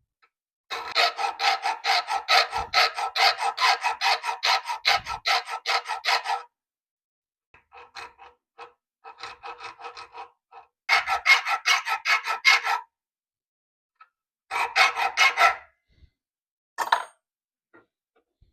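A hand tool working the flattened end of a quarter-inch steel bar, cutting small divots into the scratching head: runs of fast, even strokes with a ringing metallic tone, one long run then several shorter ones.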